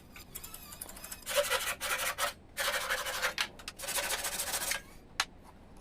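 A tool scraping and cutting into wood in two rough stretches, the first about a second long and the second about two seconds, then a single click near the end.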